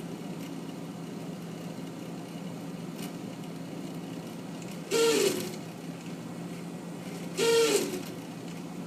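Refrigerator freezer running with a steady hum, broken twice by a loud whining squeal lasting about half a second, about five seconds in and again near the end. The whine is still there with the ice maker removed, and the owner suspects the freezer fan.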